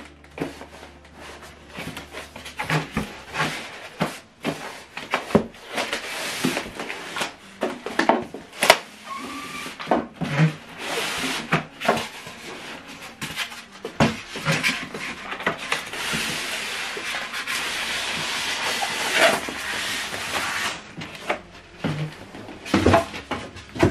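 Cardboard box and polystyrene foam packaging being handled, with scraping, rubbing and repeated knocks as the foam-packed soundbar and subwoofer are lifted out.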